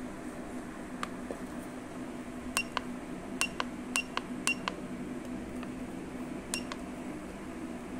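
Sharp clicks of a hand-held automotive scan tool's buttons being pressed as the cursor is stepped down its live-data list, about ten in all, most in quick pairs, over a faint steady hum.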